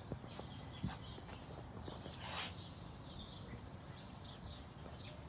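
Small birds chirping and twittering in the background, with two sharp clicks in the first second and a brief rush of noise about halfway through.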